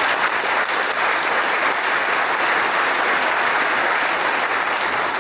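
A large audience applauding steadily: dense, even clapping.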